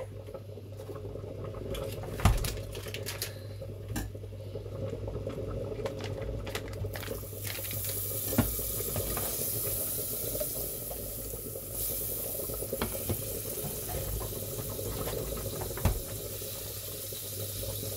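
Butter melting in a hot saucepan, bubbling and sizzling, the hiss growing louder about seven seconds in once the butter is added, with a few light knocks of pan or utensil.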